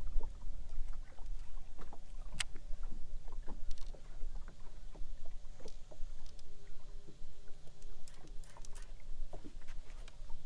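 Fishing boat sitting on the water: a low steady rumble with many small scattered knocks and clicks. A faint steady tone comes in for about two seconds past the middle.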